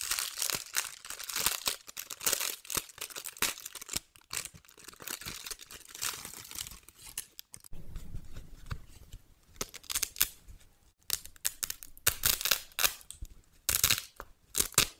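Clear plastic wrapping of a terry-cloth spa hair band crinkling as it is torn open, for about the first seven seconds. Then softer rustling of the cloth band as it is unfolded and handled, with a few louder rustles near the end.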